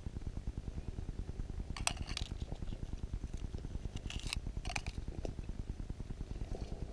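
Fishing line being wrapped by hand around a fishing hook's shank: faint rubbing with a few light clicks about two seconds in and again around four to five seconds in, over a low steady rumble.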